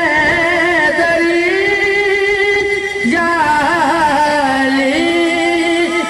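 Male voice singing a devotional manqabat live through a PA system, holding long drawn-out notes with wavering ornaments; a new phrase starts about halfway through.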